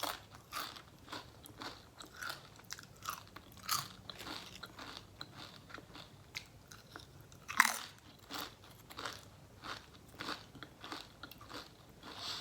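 A person chewing food close to the microphone, with crisp crunching bites about twice a second and one loud crunch about seven and a half seconds in.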